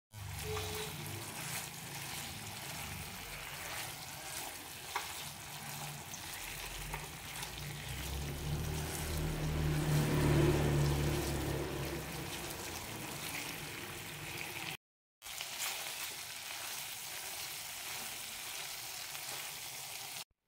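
Fried quail eggs sizzling gently in a thick, sticky fish-sauce glaze in a nonstick frying pan on low heat, stirred with a spatula, with small clicks and scrapes. The sound cuts out for a moment about three-quarters through.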